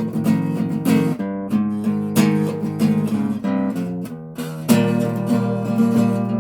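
Acoustic guitar being strummed, chords struck every second or so and left to ring.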